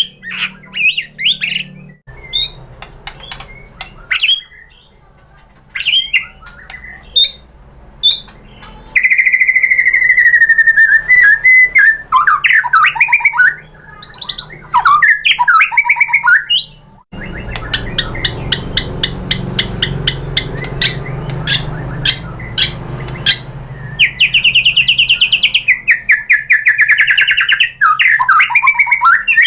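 White-rumped shama singing loudly: varied rising and falling whistled phrases, fast rattling trills and strings of sharp ticking notes. The song comes in spliced sections that switch abruptly several times.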